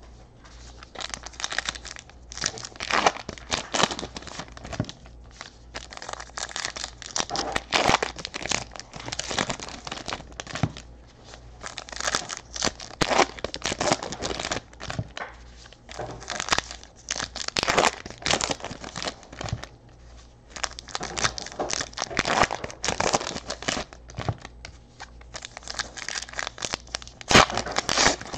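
Sealed 2018 Panini Classics football card packs being torn open, their wrappers ripping and crinkling in a run of irregular rustling bursts with short pauses between packs.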